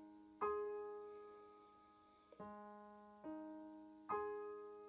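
Soft background piano music: slow single notes and chords, four struck in these few seconds, each left to ring and fade away.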